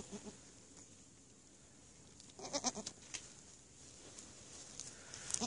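Goats bleating: a short wavering call about two and a half seconds in, and another near the end.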